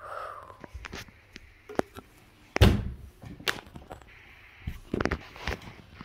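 A series of irregular knocks and thumps, the loudest about two and a half seconds in.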